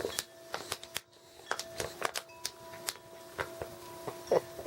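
Irregular light rustling and scratchy clicks of small puppies moving about on their bedding, over a steady low hum.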